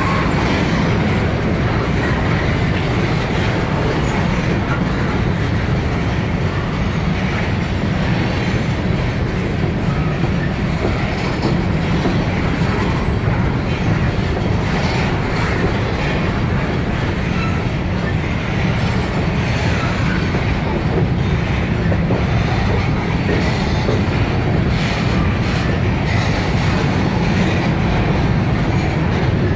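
Norfolk Southern covered hopper cars rolling past: a steady, loud rumble of steel wheels on rail, with scattered clicks as the wheels cross rail joints.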